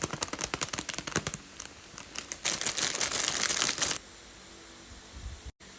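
Packaging being handled and torn open: a run of sharp crinkles for the first second and a half, then a loud continuous rip lasting about a second and a half. A soft low thump follows near the end.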